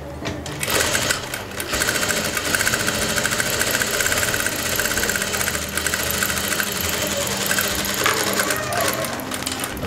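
Industrial single-needle lockstitch sewing machine running at a steady speed, stitching a seam through two layers of cotton fabric. It starts about half a second in and eases off near the end.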